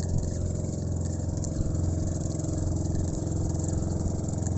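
An engine running steadily, a low pulsing drone that holds an even pitch.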